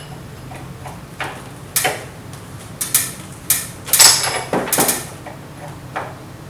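Metal spanner clanking and scraping against the tight pipe-connection nuts of a split air-conditioner, several sharp metallic clinks at irregular intervals, the loudest about four to five seconds in, over a steady low hum.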